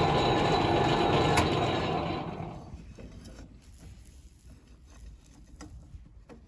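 A steady-running machine motor winds down and stops a little over two seconds in. Faint scattered clicks and knocks follow.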